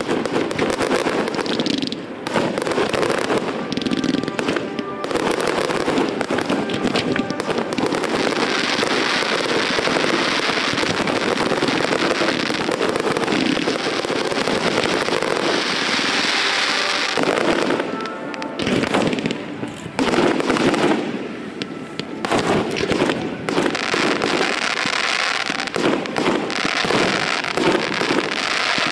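Fireworks display: near-continuous crackling and bangs of bursting aerial shells and fountains, with brief lulls about eighteen and twenty-one seconds in.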